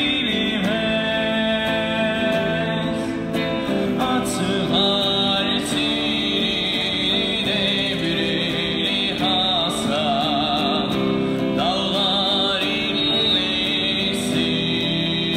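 A man singing into a microphone to his own electric guitar accompaniment: a street musician's amplified song, with a wavering held note about ten seconds in.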